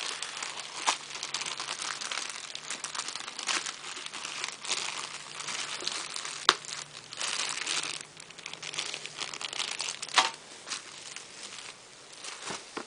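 Packaging crinkling and rustling as a graphics card is unwrapped and handled, with a sharp click about halfway through.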